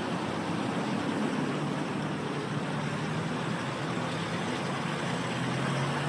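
Slow road traffic passing close by: car engines running at low speed over a steady road noise.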